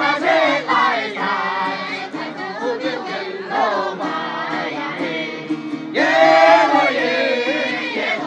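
A group of young Dong women singing a Dong folk song together in chorus, several voices over a steady sustained low line. A new, louder phrase begins about six seconds in.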